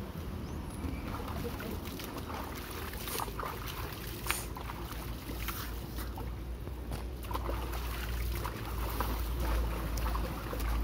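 Water splashing and sloshing as a bather scoops cold pool water over his head and body in short splashes, over a steady low rumble.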